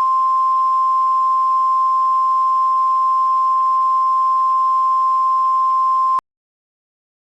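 A single steady, high electronic tone of the kind used as an emergency alert attention signal, over faint hiss; it cuts off sharply about six seconds in.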